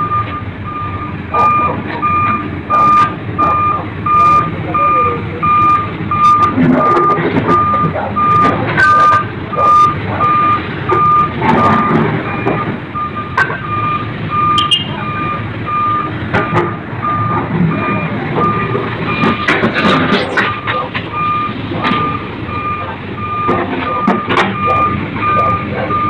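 A vehicle's reversing alarm beeping steadily, about two beeps a second, over street traffic and engine noise.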